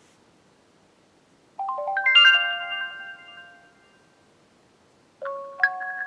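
HTC One (M8) ringtone previews playing from a smartphone speaker: a quick rising run of ringing notes about one and a half seconds in that rings out and fades, then a second ringtone phrase of ringing notes starting near the end.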